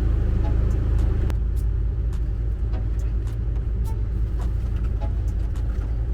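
Onan QD 3200 diesel generator running steadily, a loud low hum with a few faint clicks over it.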